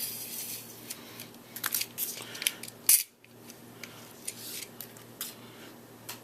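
Hands handling small plastic robot-arm parts and wires: a series of light clicks and short scraping rustles as the wires are pulled through a hole in the gripper, with one sharper click about three seconds in. A faint steady hum runs underneath.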